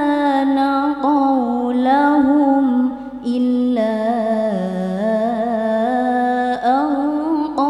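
A woman reciting the Qur'an in the melodic tilawah style, holding long notes with wavering, ornamented turns of pitch, amplified through a sound system. She breaks briefly for breath about three seconds in and starts a new phrase.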